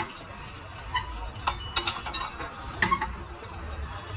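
Irregular metallic clinks and taps of a hand wrench against steel front-suspension parts, a few with a brief ringing, over a low steady workshop rumble.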